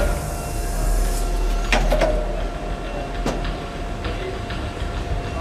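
Printing sleeves being handled on a manroland Goss VARIOMAN press during a sleeve change: two sharp metallic knocks, one a little under two seconds in with a short ring and one about a second and a half later. Underneath is a steady low machine hum with a faint constant tone.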